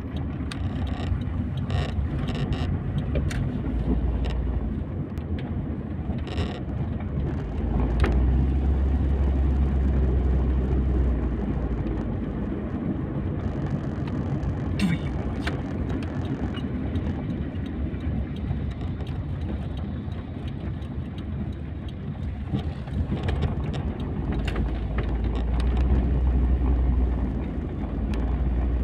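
Engine and road noise inside a moving car's cabin: a steady low rumble that swells about a quarter of the way in and again near the end, with a few light knocks in the first few seconds.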